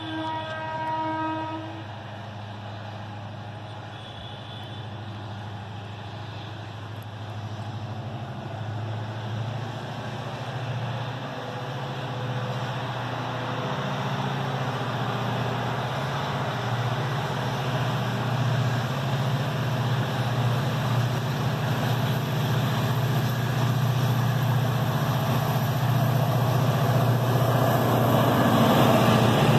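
EMD WDG4D diesel locomotive hauling a loaded freight train, its engine running under load and growing steadily louder as it approaches and comes alongside. One short horn blast sounds in the first second or so.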